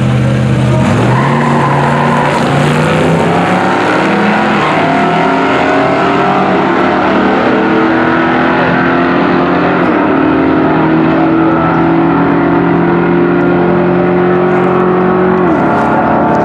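Drag-racing car engines running at full throttle, the pitch climbing in steps as the gears change and falling off near the end as the throttle is lifted.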